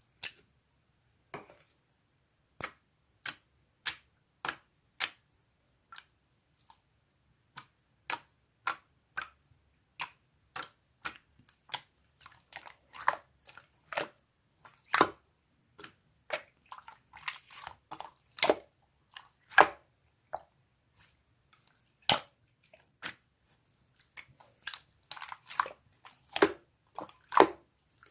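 A series of short, sharp wet clicks and smacks, close to the microphone, spaced about a second apart at first and then coming faster and more irregularly about midway through.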